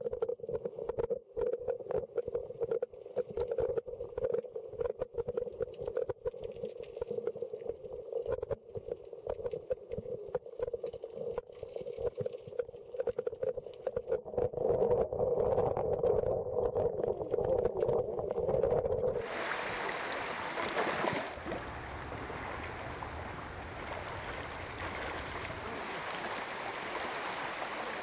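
Stream water heard underwater: a muffled rush with a steady hum and dense crackling. About two-thirds of the way through it switches abruptly to the open-air rushing of a shallow stream running over rocks.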